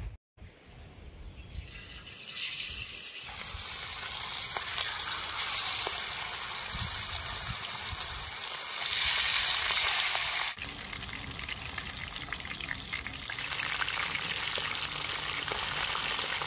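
Bangda (Indian mackerel) frying in hot oil in an open pan: a steady hissing sizzle with fine crackling that builds over the first few seconds, then drops off sharply about ten seconds in.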